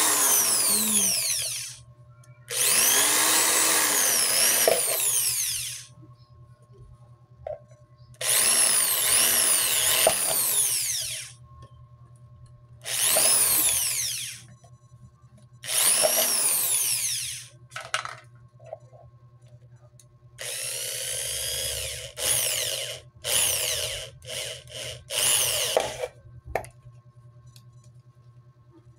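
Handheld electric drill with a thin bit boring holes in a thin plastic bottle, the motor whining up to speed and winding down in repeated runs on the trigger. There are five longer runs of one to three seconds, then a quicker string of short bursts after about twenty seconds.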